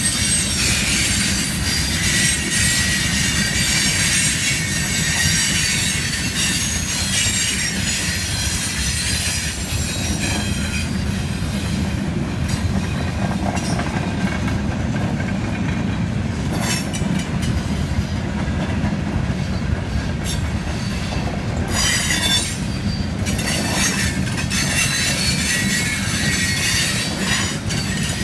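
Freight cars of a mixed freight train rolling past: a steady low rumble of steel wheels on rail. High steel-wheel squeal comes and goes over it, strongest early and again near the end.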